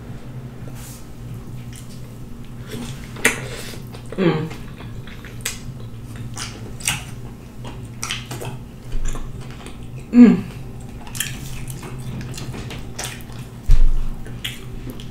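Wet chewing and lip-smacking while eating rotisserie chicken in sauce, with fingers tearing the meat. There are many small clicks, two short falling 'mm' sounds, and a dull knock near the end.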